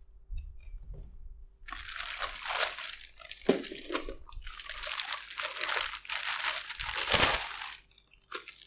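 Thin plastic packaging crinkling and rustling in two long stretches as it is pulled off a wet grinder's drum and lid, with a dull bump near the end.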